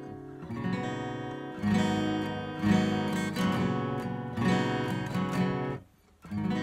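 Steel-string acoustic guitar strummed through a run of chords, each strum ringing on into the next, with a brief break near the end before one more strum.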